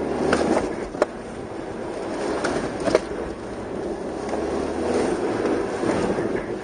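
TDI turbodiesel car driven hard through an autocross course, heard from inside the cabin: engine note rising and falling with throttle over tyre and road hiss on wet pavement, with a few sharp clicks.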